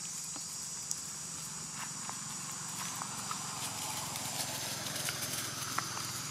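Scattered light ticks and crackles of dry leaf litter as a macaque walks over it, over a steady high hiss.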